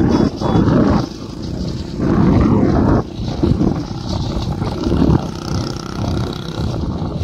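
Racing bullock carts and the motorcycles running beside them pass close by, heard as loud, uneven bursts of rushing noise, the strongest near the start and from about two to three seconds in.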